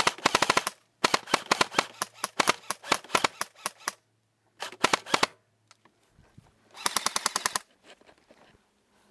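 Airsoft gun firing full-auto in rapid bursts close to the microphone: a burst that is cut off within the first second, a long burst of about three seconds, then two short bursts about five and seven seconds in.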